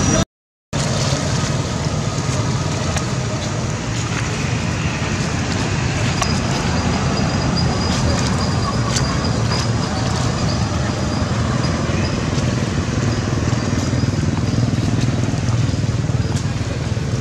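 Steady, fairly loud outdoor background noise, a low rumble with hiss and no clear single source, cutting out for a moment about half a second in.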